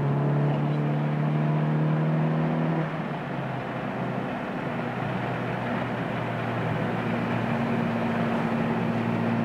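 Honda Civic Si's 1.5-litre turbocharged four-cylinder running while the car drives, heard inside the cabin over road noise. About three seconds in, the engine note drops lower and a little quieter, then holds steady.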